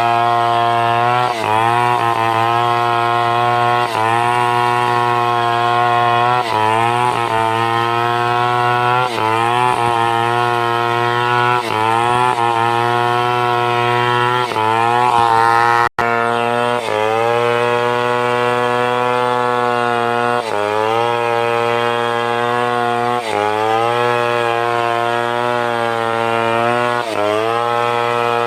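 Stihl 070 two-stroke chainsaw running at high revs while cutting timber. Its pitch sags briefly and climbs back every two to three seconds as the chain bites. The sound cuts out for an instant about halfway through.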